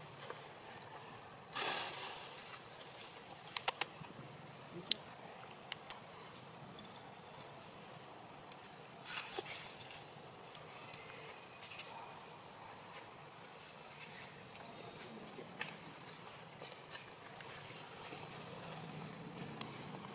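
Quiet outdoor ambience with a brief rustle about a second and a half in and a few scattered sharp clicks.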